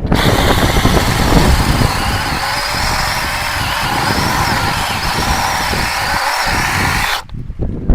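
Battery-powered 21-volt mini chainsaw running steadily with a high electric whine and chain noise, then stopping abruptly about seven seconds in.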